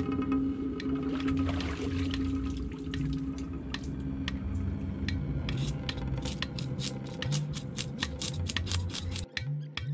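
A knife scraping the scales off a freshly caught fish in quick repeated strokes that come faster and closer together in the second half.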